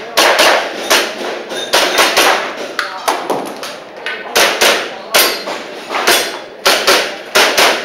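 Airsoft pistol firing a string of about fifteen to eighteen sharp shots at an uneven pace, often in quick pairs, during a practical shooting stage.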